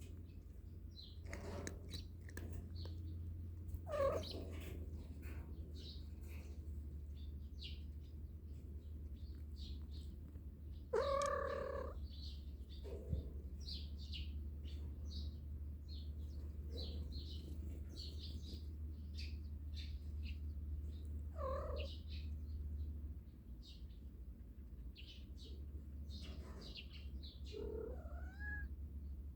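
Domestic cat meowing about four times, with the loudest meow near the middle and a rising meow near the end, over faint short high chirps and a steady low hum.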